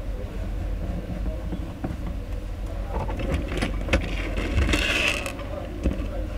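Steady low hum with a cluster of small clicks and knocks and a brief scraping rustle about halfway through, like objects being handled on a workbench.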